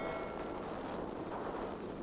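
Steady wind rushing over the microphone. A bell-like chime rings out and fades in the first half second.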